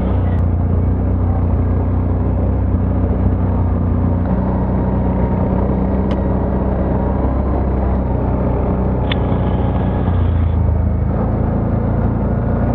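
ATV engine running steadily under way, its note shifting slightly about ten seconds in.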